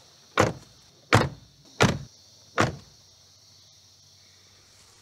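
Doors of a 2007 Volvo XC70 station wagon being shut, four heavy thuds in a row about three-quarters of a second apart, over the first three seconds.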